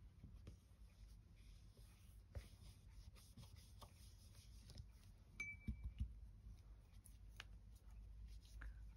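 Near silence: faint, scattered taps and clicks of small craft things being handled and moved on a desk, with a brief faint ringing note about five and a half seconds in.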